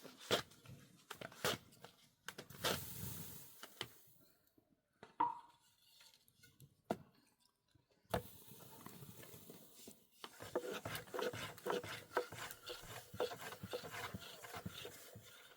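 Several separate sharp knocks, then from about ten seconds in a dense run of quick rubbing and scraping sounds, like hand work on wood or dough.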